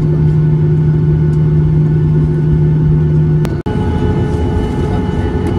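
Cabin noise of a Boeing 737-800 taxiing: the CFM56-7B jet engines and airframe give a steady, loud hum with a low drone. A little over three seconds in, it cuts out for an instant and comes back with a different, higher-pitched hum.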